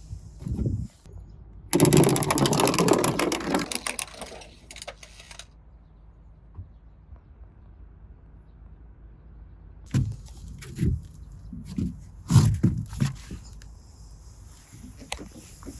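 Toy minicar rattling loudly as it rolls down a winding slope track for about two seconds, after a thump near the start. Scattered knocks and taps of small toys being handled follow later.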